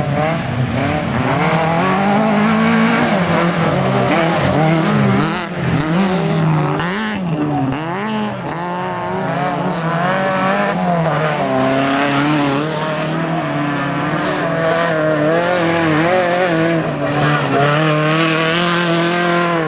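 Autocross race car engines revving hard on a dirt track, their pitch repeatedly climbing and dropping as the cars accelerate, shift and lift off through the corners.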